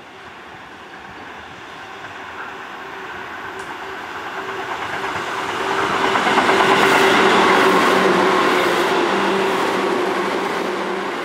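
Tobu 10030 series electric train running through a station without stopping. It grows steadily louder as it approaches, is loudest about seven seconds in as the cars pass, then eases slightly. Wheel and rail noise carries a steady low hum.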